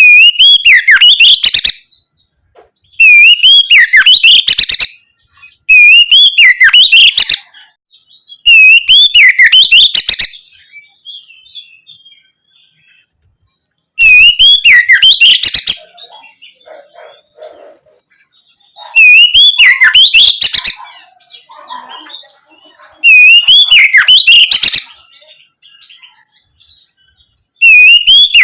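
Oriental magpie-robin (kacer) singing loudly in the open, ringing "ngeplong" style, in full song. It gives short phrases of about two seconds each, made of sweeping whistles and quick chattering notes, repeated about seven times with brief pauses between.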